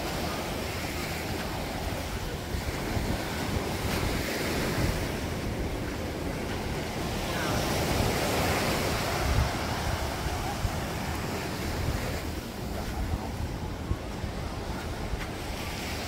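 Ocean surf breaking and washing up the sand, with wind gusting on the microphone as a low, uneven rumble. A wave surge swells to its loudest around the middle.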